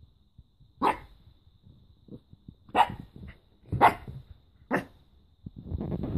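A small dog barking sharply four times, about a second apart, with a faint yip between the second and third barks. A rustling noise starts near the end.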